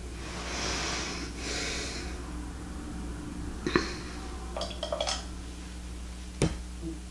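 Two breaths close to the microphone, then scattered light clicks and taps of painting tools, with a sharper knock about six seconds in, over a steady electrical hum.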